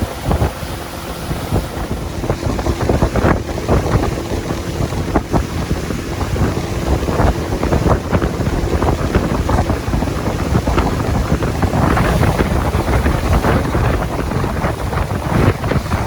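Wind buffeting the microphone on a moving pontoon boat, with water rushing past the hull and the outboard motor running underneath.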